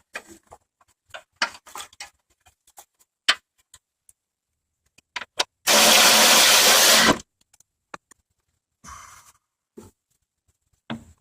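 Scattered clicks and taps of tools and metal parts being handled. Then, about halfway through, a power tool runs steadily for about a second and a half, driving in a 10 mm bolt, and stops abruptly.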